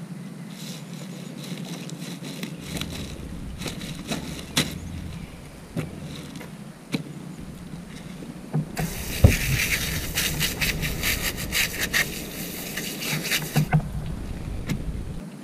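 A fillet knife scrapes and slices through fish on a plastic-covered table, with scattered scrapes and light knocks. About nine seconds in, a hose spray nozzle starts hissing water over a fish fillet for about five seconds, then stops.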